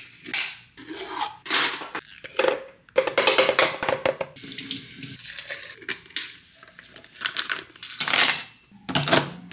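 Hands filling a plastic blender cup for a smoothie: a jar lid twisted open, a spoon scraping almond butter into the cup, and almond milk poured in with a splashing pour. Irregular small clatters and scrapes of the utensil against the cup and jar.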